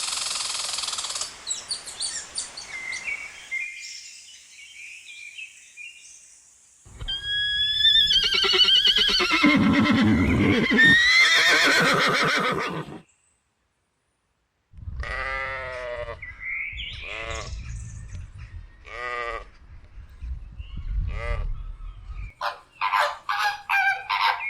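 Farm animals calling in a series of separate clips: a long run of loud, wavering calls, a short break of silence, then a string of shorter calls.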